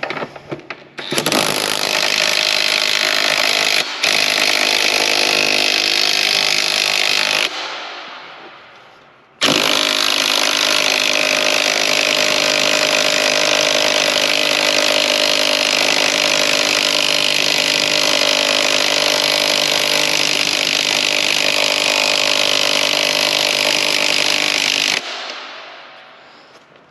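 Impact wrench hammering on a motorcycle's front axle in two long runs, a short one and then a much longer one, its motor winding down after each; the axle is still clamped by the axle pinch bolts, which have not been loosened.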